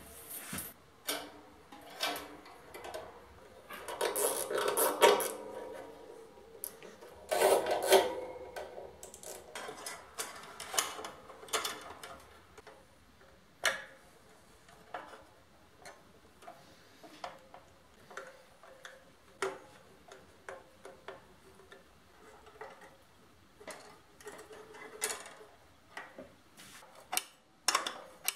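Scattered clicks and light handling noises of hands working cables, screws and plastic parts at an air compressor's pressure switch, with two louder stretches of rattling and scraping about four and eight seconds in.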